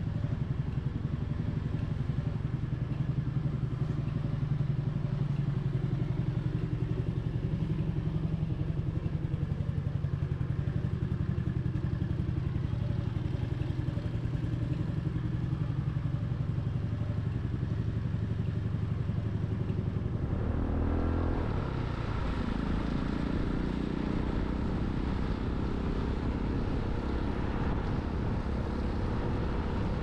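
250 cc Honda motorcycle engine running while riding, with a steady pulsing exhaust note. About twenty seconds in the sound changes: the engine note rises and the rush of wind gets louder.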